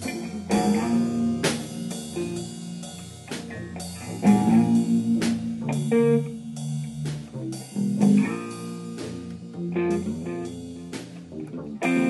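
Band music led by guitar, with bass and drums, in a bluesy style.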